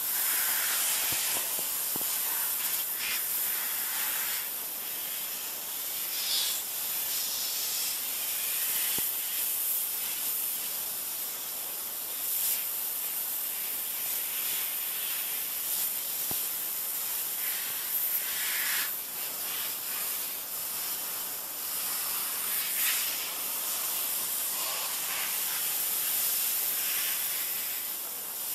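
Pressure washer jet spraying water against a plastic lawn chair: a steady, thin, high hiss with small swells as the spray moves over the surface.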